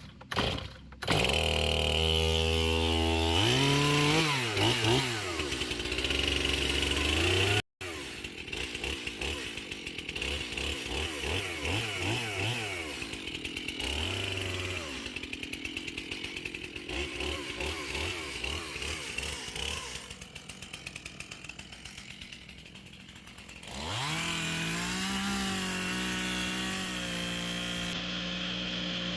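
Two-stroke chainsaw cutting trees, revving up and down again and again between cuts. It is held at steady high revs near the end.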